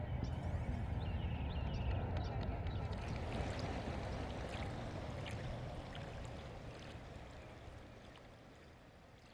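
River water running and lapping, with a low rumble and a few faint ticks, slowly fading out over the second half.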